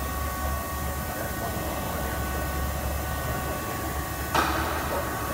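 Steady machinery hum with a few held tones and a low drone, broken by a single short metallic clank about four seconds in.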